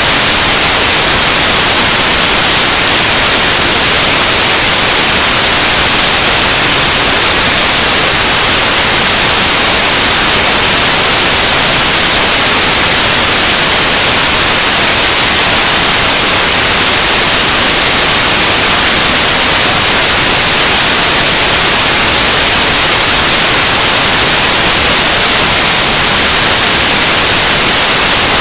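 Noise music: a loud, unbroken wall of static hiss, brightest in the high end and holding steady without change.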